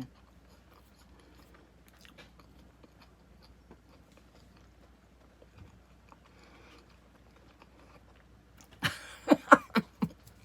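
Chewing of a soft marshmallow Peeps candy, faint, with small mouth clicks. About nine seconds in comes a louder burst of wordless pitched voice sounds, rising and falling.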